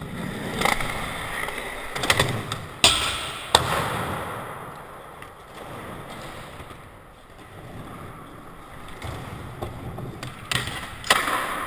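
Skateboard wheels rolling over the park surface with a rumble that swells and fades. Sharp clacks of the board hitting the ground come twice about 3 seconds in and again near the end.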